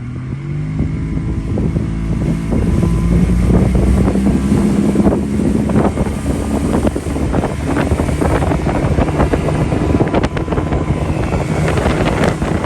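Mercury 60 two-stroke outboard speeding up under throttle, its pitch rising over the first three seconds, then running steadily at speed. Wind buffets the microphone and short knocks come through.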